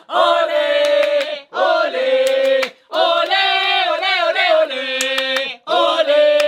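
Several voices singing together in short, held phrases separated by brief breaks, with a few sharp clicks among them.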